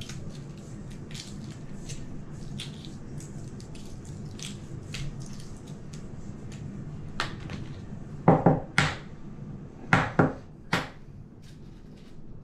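Hard-boiled eggshells being cracked and picked off by hand, small crisp crackles and clicks throughout. Several louder sharp knocks come about two-thirds of the way in.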